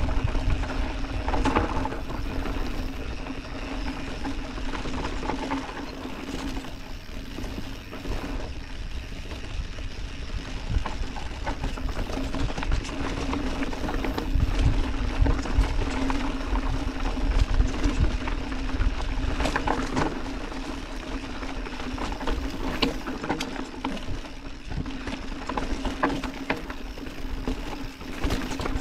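Orbea Occam TR full-suspension mountain bike riding down a dirt trail: low rumble of the tyres on the ground, frequent sharp knocks and rattles from the bike over bumps, and a steady buzz underneath.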